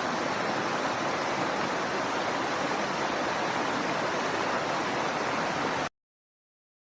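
Rushing water of a river stream, a steady even rush that cuts off abruptly to silence about six seconds in.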